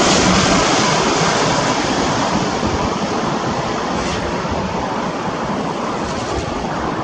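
Jet engine noise from an Airbus A320neo, a broad rushing roar that slowly fades as the airliner moves away.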